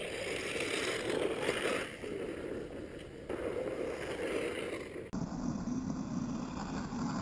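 A DHK Wolf 2 1/10 brushless RC buggy driving hard across a dirt track: a steady rushing noise of tyres on dirt and motor, without a clear motor whine, that drops lower in pitch about five seconds in.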